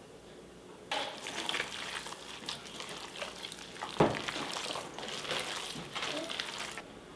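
Hands kneading and squishing a raw ground beef and ground liver meatloaf mixture in a stainless steel bowl: wet squelching and smacking that starts about a second in and stops near the end. About halfway through there is one sharp knock, the loudest moment.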